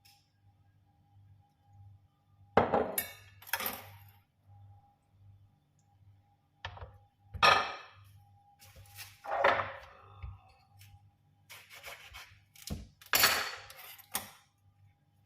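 Kitchen dishes and containers clinking and knocking as they are handled, in several short clusters of sharp clinks, over a faint steady hum.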